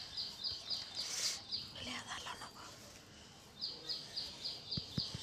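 A bird chirping: quick high chirps about four a second, in two runs with a pause of about two seconds in the middle.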